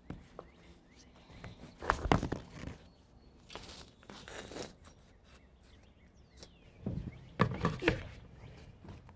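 Handling noise: scattered knocks and rustling as things are moved about by hand. There are two louder clusters of knocks, about two seconds in and again about seven to eight seconds in.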